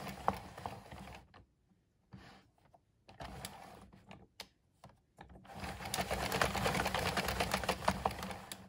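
A 22-needle plastic circular knitting machine being turned, with a fast clatter of its needles. It stops after about a second, then after a pause of a few seconds runs again until near the end.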